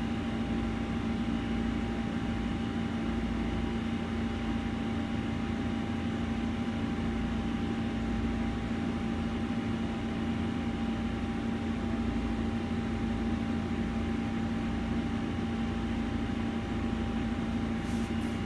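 Steady mechanical hum with a constant low tone and a fainter higher one, even in level throughout.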